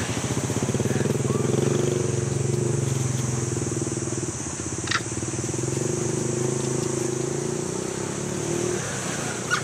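A motor vehicle's engine running steadily, a low pulsing drone that eases off a little midway. A single sharp click about five seconds in.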